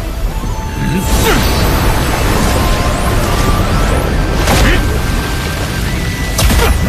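Dramatic score under sound effects of water magic: rushing, splashing water with whooshes sweeping through about a second in, again past the middle and near the end.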